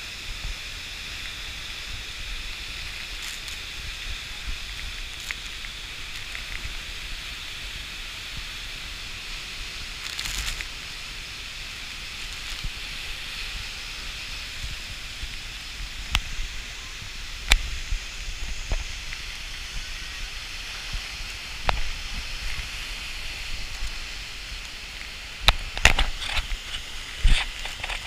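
Steady rushing of a large waterfall in spate. Sharp knocks from handling the camera break in now and then during the second half, several in quick succession near the end.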